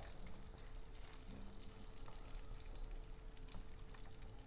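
Butter and butterscotch candies sizzling faintly in a pot over a low flame as the candies begin to melt, with scattered small crackles.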